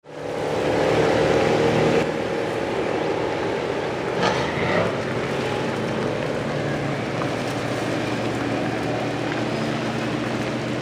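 Car engines running at an autocross, one engine's note strongest for the first two seconds before settling into steady engine noise. There is a brief louder noise about four seconds in.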